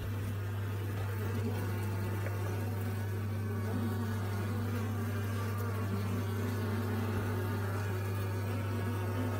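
Honeybee colony buzzing on its fresh comb inside an open hive: a steady, unbroken hum with a slightly wavering higher buzz over it.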